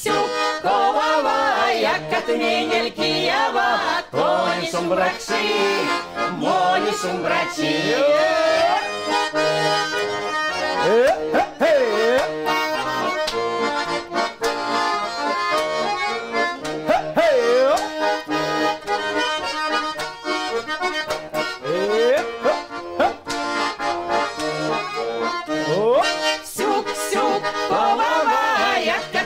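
Tula button accordion (bayan) playing a Mordovian folk dance tune without singing, steady and full throughout. Several short sliding pitch glides sound over it now and then.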